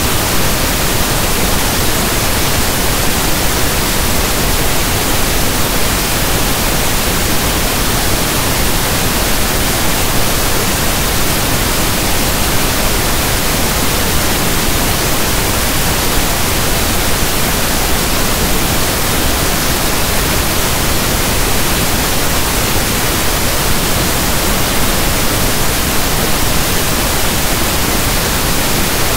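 Steady generated pink noise: a soft, even static hiss like a radio tuned between stations, unchanging in level.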